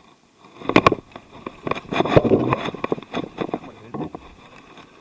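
Knocks and thumps on a kayak, the loudest a sharp double knock about a second in, followed by a couple of seconds of clattering and rustling that fades. A small, just-landed bass is being handled in the boat.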